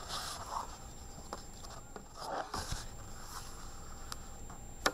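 Paper rustling and soft scraping as a picture book is closed and handled on a wooden table, with a few light taps and one sharp click near the end.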